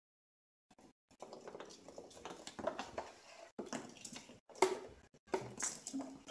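A kitten and a puppy scuffling over a treat on a hard floor: scattered clicks, taps and scrapes of paws and claws, beginning about a second in after dead silence.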